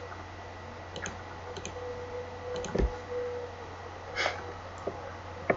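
A few single computer mouse clicks, spaced apart, over a faint steady electrical hum.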